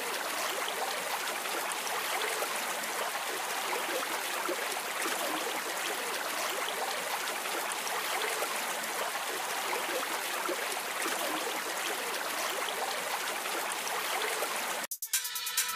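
Shallow river running over stony rapids, a steady rush of water. Near the end it cuts off suddenly and electronic music with a regular beat starts.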